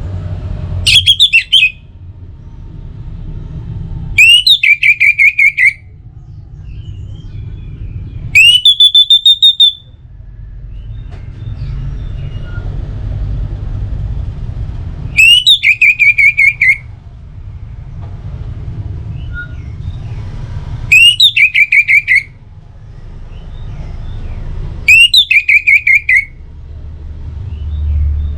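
Orange-headed thrush (anis merah) song: the same short, loud phrase of very fast notes, about a second and a half long, repeated six times with gaps of a few seconds, over a low background rumble.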